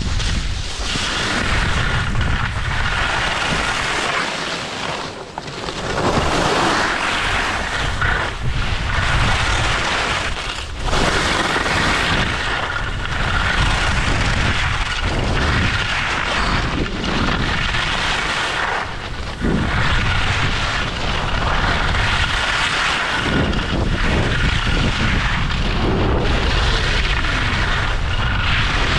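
Wind rushing and rumbling over the microphone of a camera carried by a downhill skier, with skis hissing and scraping on groomed snow; the noise swells and dips every few seconds with the turns.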